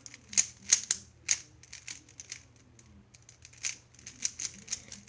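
Speed cube being turned fast during a solve: a MoYu AoLong's plastic layers clicking and clacking in irregular quick runs.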